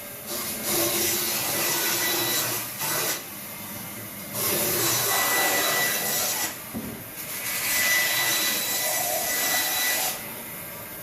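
Long stretches of rasping, hissing work noise, each one to three seconds long with short breaks between, of the rubbing or sawing kind.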